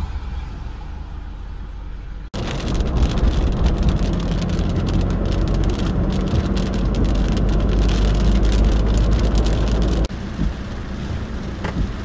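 Car driving in rain on a wet highway: a steady rush of tyres and wind over a deep engine rumble, with light pattering on top, heard from inside the car. It is quieter and steadier before an abrupt change about two seconds in and again near the end.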